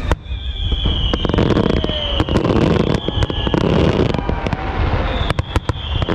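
Fireworks going off in rapid, irregular bangs and crackles, with a high whistle sliding slightly down in pitch three times.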